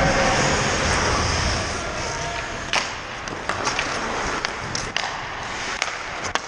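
Ice hockey skates scraping and carving on rink ice as a steady rushing hiss. From about three seconds in, a string of sharp, uneven clacks of sticks and puck.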